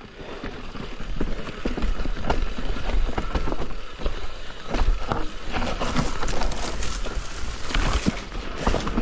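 Mountain bike rattling down a rough trail: tyres on dirt and stones with a dense run of clicks and knocks from the bike, over a steady low rumble.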